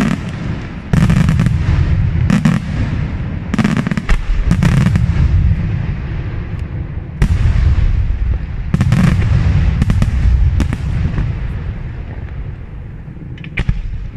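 Aerial firework shells bursting in quick succession: sharp bangs every second or two over continuous low rumbling booms, thinning out and quieter near the end.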